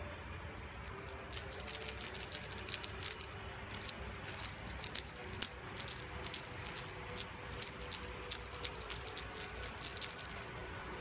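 A small bell jingling and rattling in quick, irregular shakes, from about a second in until just before the end, as the pet plays with the ball.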